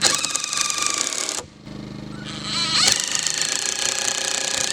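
Cordless impact driver hammering a long screw into a timber post in two runs, one short and one longer after a brief pause.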